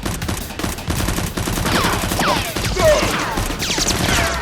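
Rapid gunfire sound effects, many quick shots in close succession, with several falling whistles over the shots in the second half.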